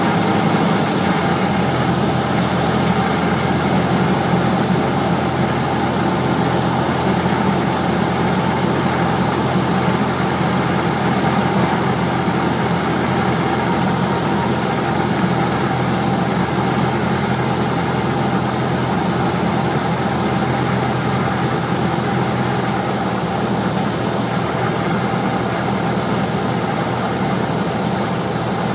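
Auster light aircraft's piston engine and propeller running in flight, a steady drone with an even rush of air noise.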